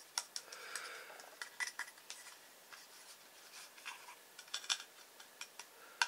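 Fingers turning over and handling a small Eaglemoss Saber-class starship model, giving scattered light clicks and taps on its hull, with a soft rub about half a second in. The model seems to be mostly plastic with little or no metal.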